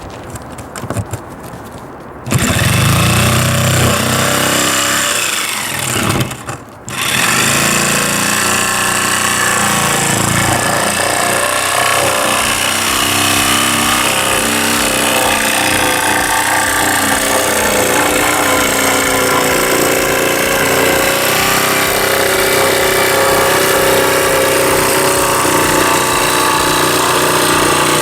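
Jigsaw cutting through a carpeted boat deck: the saw starts about two seconds in, stops briefly around six seconds, then runs steadily through the cut.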